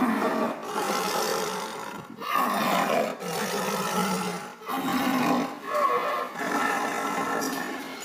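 White tigers growling, a run of long growls each a second or two long with short breaks between them.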